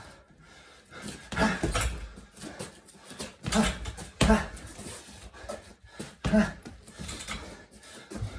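Gloved punches from 6 oz MMA gloves landing on a 45 lb Combat Sports double-end heavy bag. They are thrown in quick pairs about every two and a half seconds, each strike with a sharp grunted exhalation.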